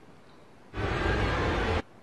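A burst of music about a second long, cut in abruptly a little before the middle and cut off just as sharply, between stretches of faint room tone.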